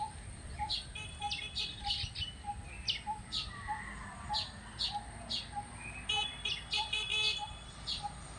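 Small birds chirping: many short high calls with a few stuttering buzzy trills about six to seven seconds in, over a steady lower note repeated about twice a second.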